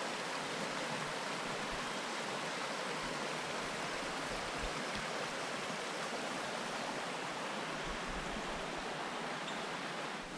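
Steady rushing of a river flowing over rocks below.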